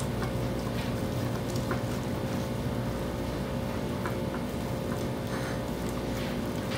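Boiled potatoes being grated on a metal box grater: faint, soft scraping strokes at an uneven pace over a steady low hum.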